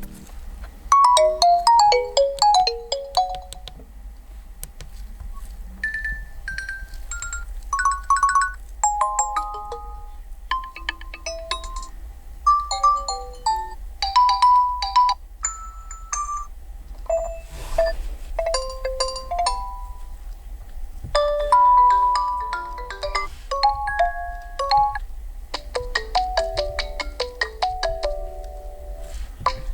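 Built-in ringtones of a Nokia G60 5G Android phone previewed one after another: short melodies of quick pitched notes, a new tune every few seconds. A steady low hum runs underneath.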